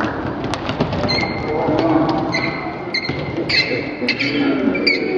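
Sneakers squeaking on a hardwood gym floor in short chirps, several times over, with scattered thumps of a bouncing basketball over crowd chatter.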